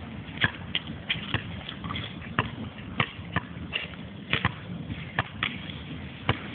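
A basketball bouncing on an outdoor concrete court: scattered sharp knocks at irregular intervals, about a dozen in all, over steady background noise.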